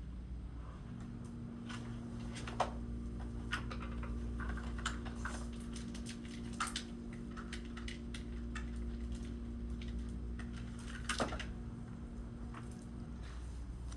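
Irregular light clicks and taps, like typing or small objects being handled, over a steady low hum that carries a faint steady tone from about a second in until near the end.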